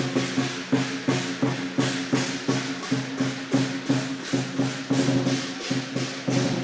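Chinese lion dance percussion: a drum beaten together with clashing cymbals in a fast, even rhythm of about three strokes a second, over a steady low ringing tone.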